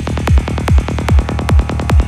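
Dark psytrance music: a kick drum on every beat, a little over two a second, each kick dropping in pitch, with quick rolling bass notes filling the gaps between kicks.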